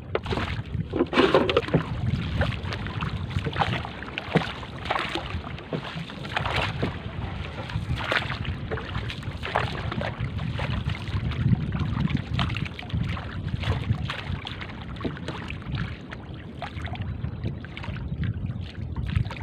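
Wooden paddle strokes splashing in seawater as a small outrigger canoe is paddled, with water lapping at the hull and wind buffeting the microphone.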